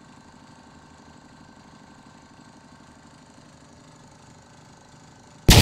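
Well-drilling rig's engine running steadily with a fast even beat. Right at the end a sudden, much louder clattering noise cuts in.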